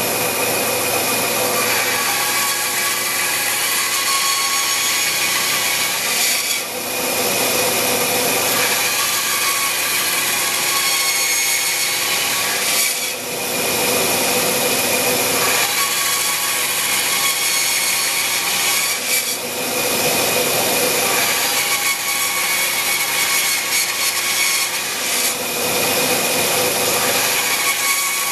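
Band saw running and cutting into a wooden windmill blade blank: a steady motor and blade sound with a constant high tone, dipping briefly about every six seconds between cuts.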